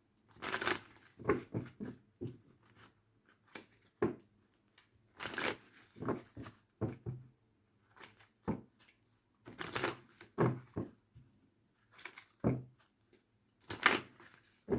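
A deck of tarot cards being shuffled by hand: a string of short, irregular swishes and slaps of cards, about one or two a second.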